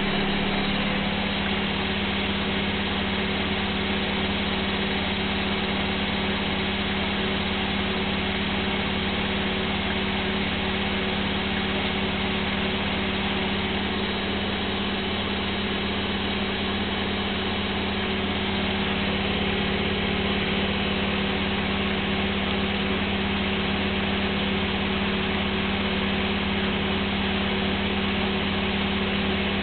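Gorenje washing machine in its extra-spin cycle, the drum spinning at a constant high speed with a steady motor hum and whine that does not change.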